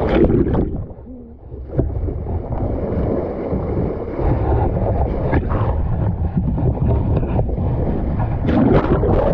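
Water rushing and splashing hard against a sailboat's hull at the waterline, with wind buffeting the microphone, loud and churning, easing briefly about a second in.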